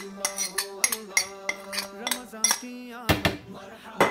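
A steel spoon and a plate clinking and scraping against the rim of a bowl as spices are knocked off into it: a quick run of light clinks, with a louder knock about three seconds in.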